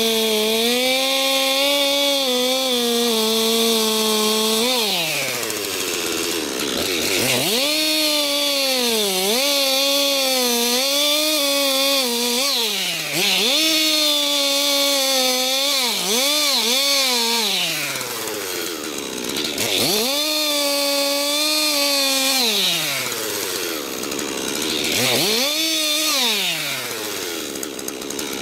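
Chainsaw engine cutting wood, held at high revs, then repeatedly dropping back toward idle and revving up again.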